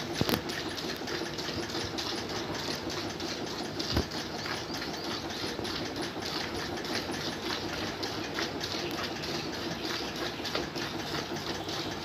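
Milk squirting from a cow's teats into a steel bucket as she is milked by hand: a rapid, even rhythm of squirts striking the pail. There is a single knock about four seconds in.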